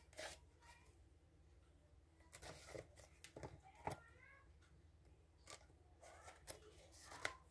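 Faint, scattered scratches and crackles of a utility knife blade slitting the plastic shrink-wrap on a small cardboard box.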